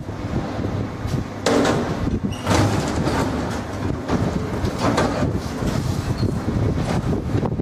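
Metal tripod turnstile knocking and clanking several times as a man forces his way through and under its arm, over a steady rumble of metro station noise.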